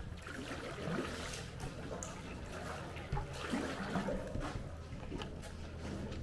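Water trickling and splashing around a kayak as it is paddled, with drips running off the paddle blades between strokes.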